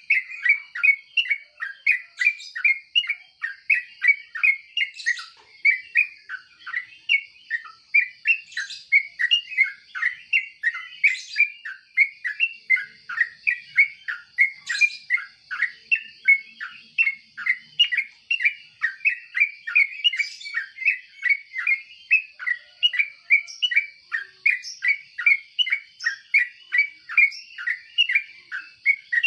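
Yellow-vented bulbul (trucuk) chirping in a rapid, even series of short notes, about three a second, without pause, over a steady high-pitched tone.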